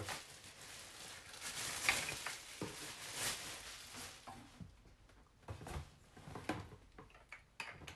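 Plastic packaging bag crinkling and rustling as an appliance is unwrapped, then several short light knocks as the unit is handled, mostly in the second half.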